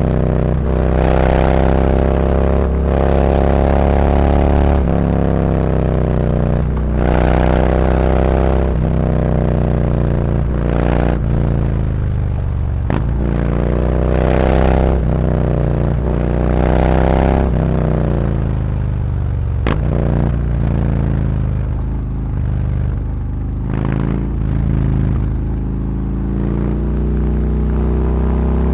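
Harley-Davidson Road Glide's V-twin through SuperTrapp 4-inch internal-disc slip-on mufflers, accelerating through the gears: the exhaust note climbs in pitch on each pull and drops at each shift, several times over. Near the end it runs lower and steadier.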